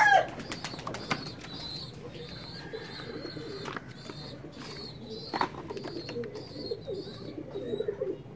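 Pigeons cooing with short high bird chirps, over scattered clicks of plastic bottles and caps being handled; the tail of a rooster's crow ends right at the start.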